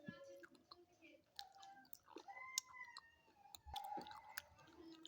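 Faint crunching with scattered sharp clicks: a chalky stick being bitten and chewed close to the microphone.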